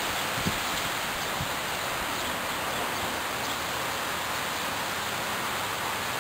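Steady outdoor hiss with no clear events, apart from a soft low thump about half a second in.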